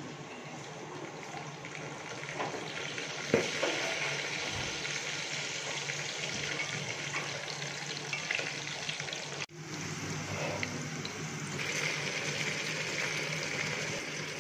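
Water running from a kitchen tap into a sink as dishes are rinsed, with one sharp clatter about three seconds in. After a cut about two-thirds through, a steady sizzle of chicken frying with onions in an aluminium pot.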